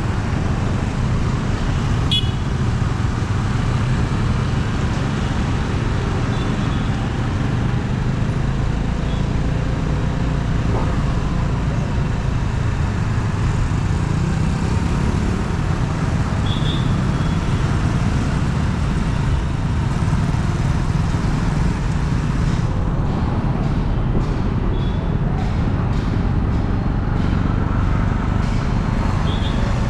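Busy city road traffic: a steady low rumble of engines and tyres, with a few short horn toots.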